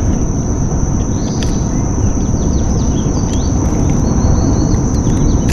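Steady low rumble with a constant high insect buzz and quick, downward-sweeping bird chirps, some in rapid series.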